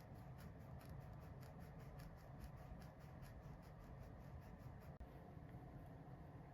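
Near silence: quiet room tone with a faint, rapid train of small clicks, about four or five a second, thinning out near the end.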